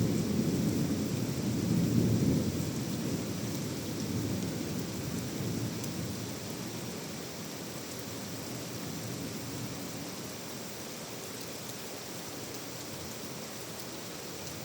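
Thunder rumbling, loudest about two seconds in and dying away over the next several seconds, over steady heavy rain.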